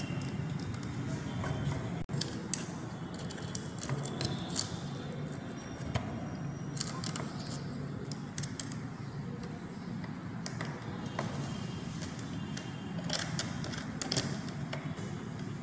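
Scattered small clicks and scrapes of a screwdriver and bare copper wire being worked into a plastic switch's screw terminal, over a steady low background noise.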